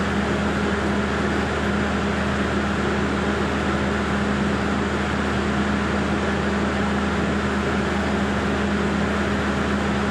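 Steady hum of an engine running at a constant speed, a strong low drone with an even hiss over it and no change in pitch or level.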